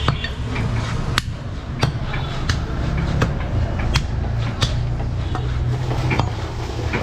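Butcher's cleaver chopping goat meat, about ten sharp strikes at an even pace of roughly one every two-thirds of a second, over a steady low background rumble.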